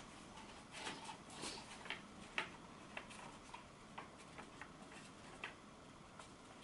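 Long paper scroll crackling faintly in the hands: a dozen or so light, irregularly spaced ticks and crinkles.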